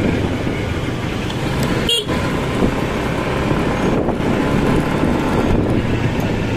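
Motorcycle engine running steadily on the move, with wind and road noise, and a brief high tone about two seconds in.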